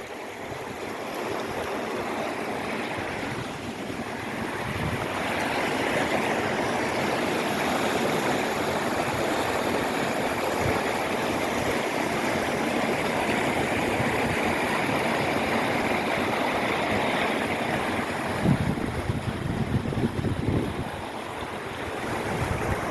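Creek water rushing steadily in full, fast flow. Gusts of wind buffet the microphone in a cluster of low thumps about three quarters of the way through.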